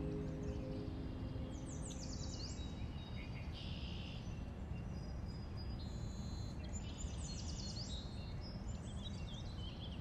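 Quiet indoor morning ambience: a steady low background hum with faint birds chirping, quick falling twitters about a second and a half in and again around seven seconds. Background music fades out at the very start.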